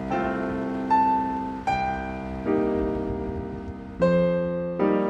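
Slow instrumental background music: piano chords and single notes struck about once a second, each ringing on and fading before the next.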